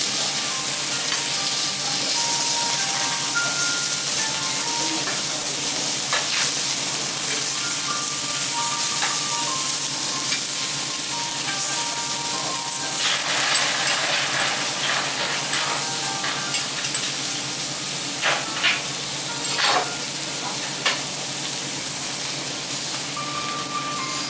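Food sizzling steadily on a hot teppanyaki iron griddle. Metal spatulas click and scrape on the plate several times in the second half.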